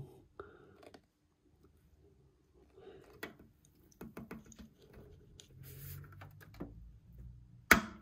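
Faint clicks and rustling as RCA audio cables are handled behind an amplifier while an RCA coaxial plug is fitted to its input. A sharper click comes near the end.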